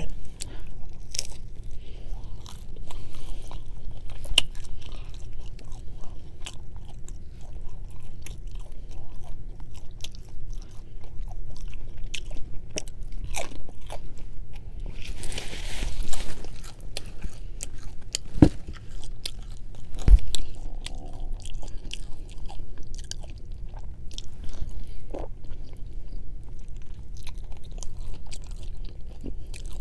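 Close-miked chewing and biting while eating chicken wings, with wet mouth sounds and many small sharp clicks and crunches, plus a few louder knocks about 18 and 20 seconds in.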